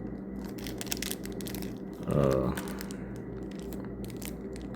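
Plastic packaging crinkling and rustling in irregular short bursts as small accessories are unpacked, with a brief murmur from the man about two seconds in. A steady low hum runs underneath.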